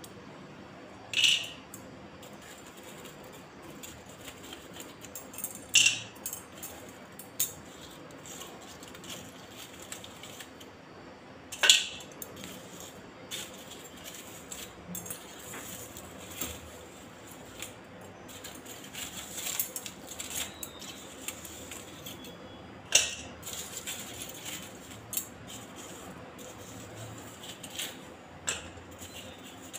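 Steel utensils clinking and scraping against roasted multani mitti (fuller's earth) in crinkled aluminium foil, on a stone counter and a steel plate. There is a handful of sharp clinks several seconds apart, with faint scraping and foil crackle between them.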